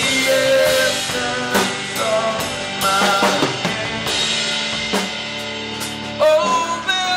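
Rock band playing live through an instrumental passage with no singing. A drum kit (kick and snare) hits every second or so under sustained melody notes and bass.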